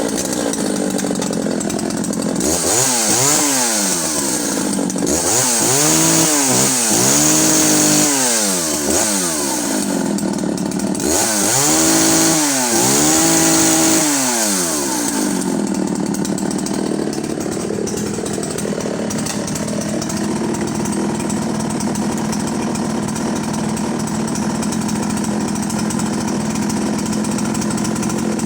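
Husqvarna Rancher 61 two-stroke chainsaw, freshly started, revved up and back down several times in the first half, then settling to a steady idle for the rest.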